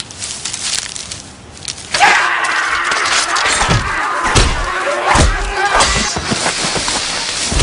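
Soft rustling and footfalls, then about two seconds in a sudden loud burst of a crowd of men yelling and clashing in a brawl, with several heavy thuds.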